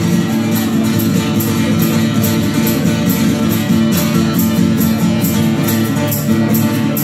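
Two acoustic guitars strumming in a live band performance, keeping a quick, steady rhythm.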